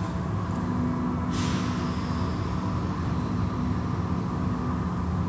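Automatic tunnel car wash running: a steady hum of its motors and pumps with a few held low tones, and water-spray hiss that grows stronger about a second in.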